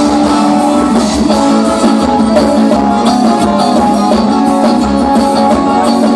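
Live forró band playing an instrumental passage with guitar prominent, loud through the stage sound system, with a steady beat.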